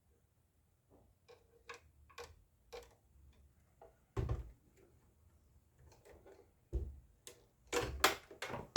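A screwdriver working a screw into a sewing machine's plastic cover, with handling of the cover: scattered light clicks, then a few louder knocks in the second half.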